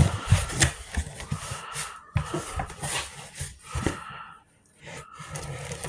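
A cardboard mystery box being handled and opened: irregular knocks, scrapes and rustling, with a short pause about four and a half seconds in.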